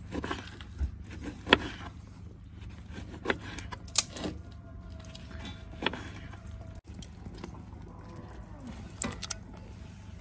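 Scattered sharp clicks and light knocks, one every second or two, over a faint steady background.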